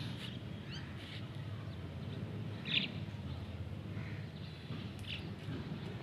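Birds chirping: a few short high calls, the loudest about three seconds in, over a steady low rumble.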